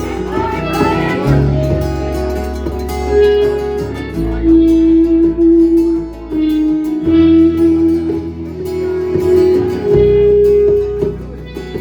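A live band playing an instrumental passage of a song, guitar to the fore, over held bass notes that change every few seconds.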